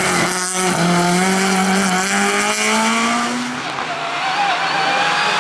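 Ford Escort Mk1 hillclimb car's engine at full throttle, with a brief drop about half a second in, like a gear change, then its pitch climbing steadily as it pulls away. Near the end it cuts to another rally car's engine.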